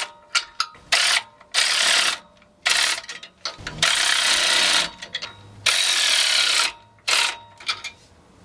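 Socket ratchet clicking in repeated runs of about half a second to a second, with single clicks between, as the nylock nuts on an air-bag bracket's clamp bolts are snugged down a little at a time.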